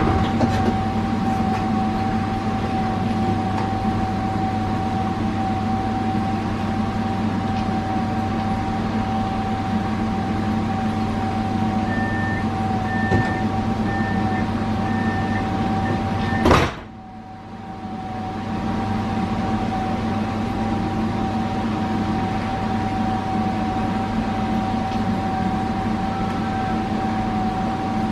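Interior running noise of a Pesa 120Na Swing tram: a steady hum with a steady whine over it. A run of short beeps sounds in the second half, then a sharp click, after which the noise drops and builds back up over about two seconds.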